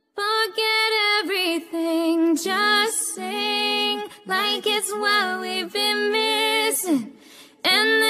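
A single high singing voice with no audible backing, singing sustained pop-song phrases with the lyrics 'Forget everything' and 'And they're gonna listen, listen', with a short breath pause near the end.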